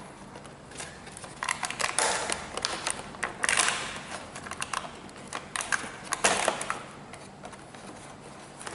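Plastic clicks and rustling scrapes as a plastic drone is pried loose from a moulded foam packing tray, with three louder scraping bursts.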